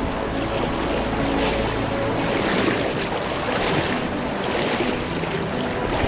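Fast, high river rapids rushing over a submerged concrete wall and splashing around a wader's legs as he steps through the current: a steady, full rush of water.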